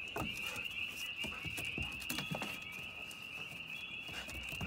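German Shepherd puppy's claws tapping and clicking irregularly on wooden deck boards as she moves about. A steady high insect trill runs underneath.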